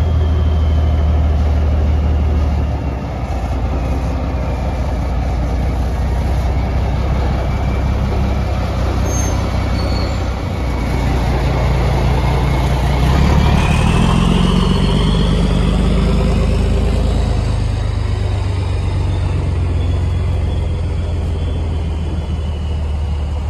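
Heavy engine running steadily with a low drone. About midway a second engine sound swells and rises in pitch, then the drone carries on.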